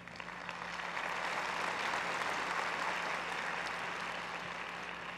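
Audience applauding in an auditorium, swelling over the first two seconds and then slowly dying away near the end.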